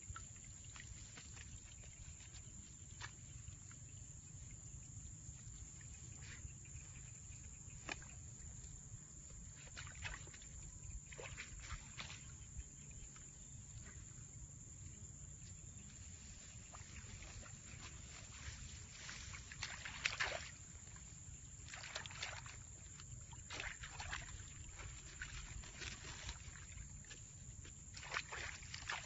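Faint water splashing and sloshing around a small boat moving slowly on calm water, in short irregular splashes with the loudest about two thirds of the way through, over a low steady rumble.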